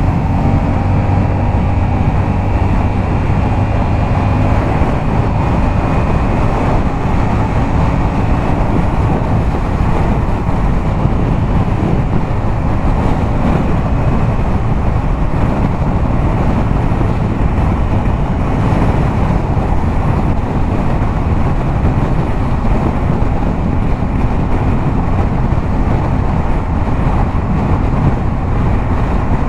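Yamaha MT-07's parallel-twin engine, fitted with a LeoVince aftermarket exhaust, running steadily at highway speed, with wind noise.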